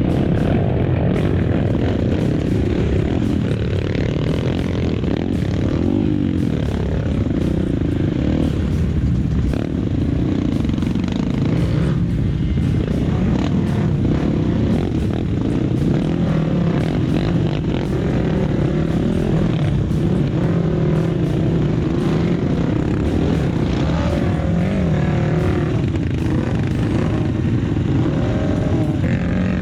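Trail motorcycle engine running as it is ridden off-road, its pitch rising and falling with the throttle.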